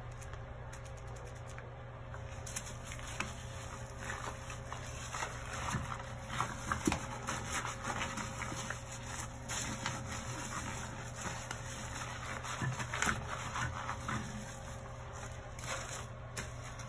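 A sponge scrubbing a bathroom sink basin with Ajax scouring powder: quick, irregular rubbing strokes, busiest in the middle, over a steady low background hum.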